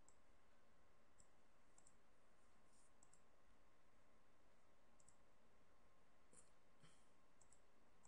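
Faint computer mouse button clicks, a scattered series with some in quick pairs, over a low steady hiss.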